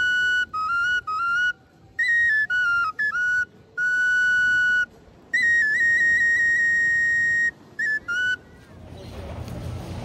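A high whistle-like tune: a string of clear held notes that step up and down in pitch, with short breaks between them. The longest note is held for about two seconds, just past the middle.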